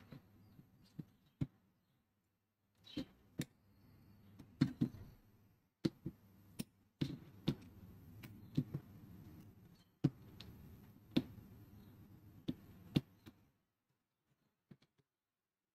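Scattered sharp clicks and light knocks, at irregular intervals, as a thin pry tool is worked along the edge of a laptop's screen assembly. They stop shortly before the end.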